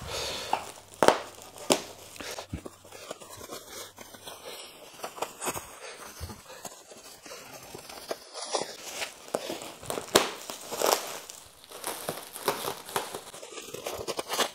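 Plastic bubble wrap and packing tape crinkling and rustling in irregular crackles as the wrapping is cut open with scissors and pulled apart.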